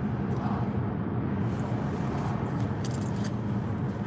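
Steady low rumble of road and engine noise inside a moving car's cabin, with a few faint light rattles.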